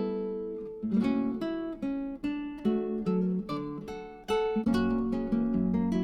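Background music: acoustic guitar, plucked and strummed notes ringing out one after another, with a brief drop in level about four seconds in.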